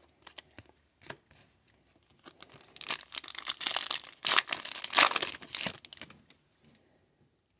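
Foil wrapper of a Topps Chrome baseball card pack crinkling and tearing open for a few seconds, after a few light clicks and taps.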